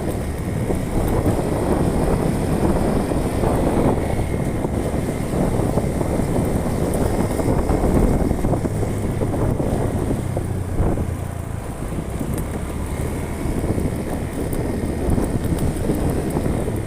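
A vehicle driving along a road: steady engine hum with road rumble, and wind buffeting the microphone.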